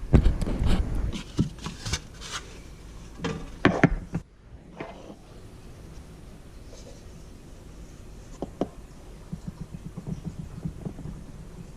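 Handling noises: rustling and a run of light clicks and knocks during the first four seconds, then only faint scattered ticks over a low background.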